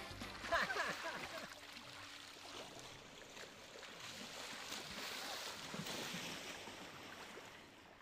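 Sea water splashing as people run and wade through the shallows, with a brief voice about half a second in; the sound fades away near the end.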